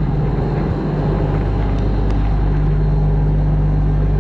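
Combine harvester's diesel engine running steadily with an even low hum.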